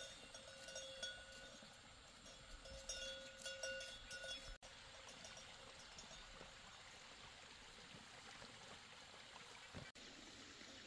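Faint rural outdoor ambience: a few steady ringing tones with light clicks, which cut off abruptly about four and a half seconds in, giving way to an even faint hiss.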